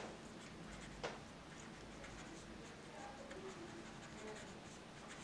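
Felt-tip marker writing on paper: faint scratching strokes, with a light tap about a second in.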